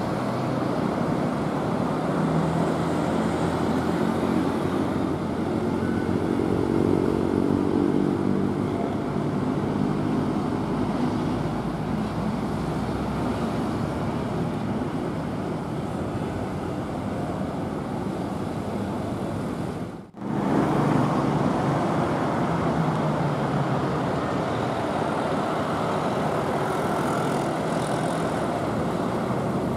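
Road traffic at a busy junction: tour buses and motorcycles passing, with a heavy bus engine's note climbing as it pulls away in the first several seconds. The sound cuts out for a moment about two-thirds of the way through, then the steady traffic noise resumes.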